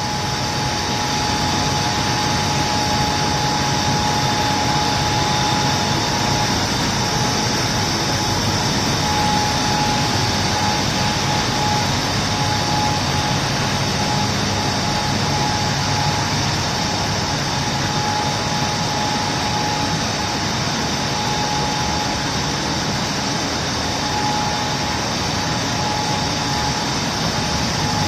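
Pet food pellet extruder line running: steady machinery and motor noise with a steady whine over it.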